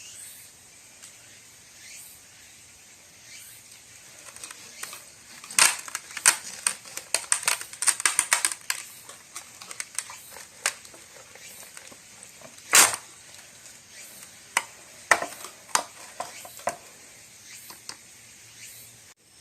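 Kitchen clatter while cooking: an irregular run of sharp clicks and knocks, densest a few seconds in, with one loud knock about halfway through and scattered ones after.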